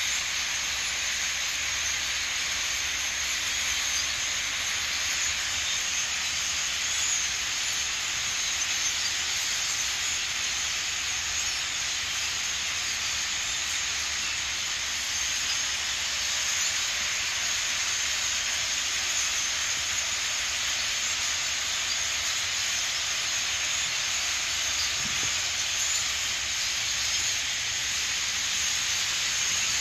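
A large flock of European starlings calling all at once, their overlapping chatter and whistles merging into a steady, high, hissing wash of sound with no single call standing out.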